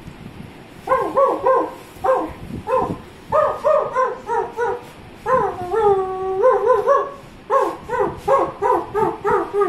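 A dog barking and yipping in quick runs of short, high barks, about three a second, with one longer drawn-out call about five seconds in.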